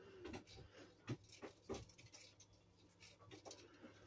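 Near silence with faint, irregular small ticks and rustles of fine copper wire being handled and woven by hand, over a low steady hum.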